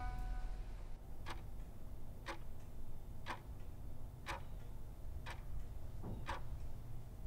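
Quartz wall clock ticking, one sharp tick a second, about seven ticks in all.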